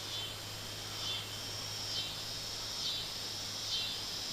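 Insects buzzing in a steady high chorus that swells and dips about once a second.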